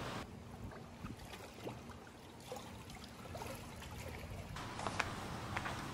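Swimming-pool water splashing and lapping around a swimmer's kicking legs. It is muffled for most of the time, with a few sharper small splashes near the end.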